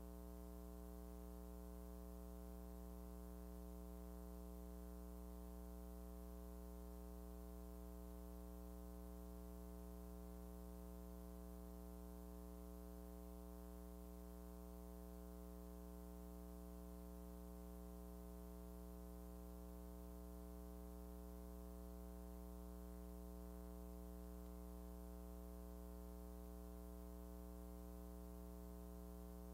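Faint steady hum with a stack of even overtones, unchanging throughout: background hum on the soundtrack of a silent film transfer, with no sound of the scene itself.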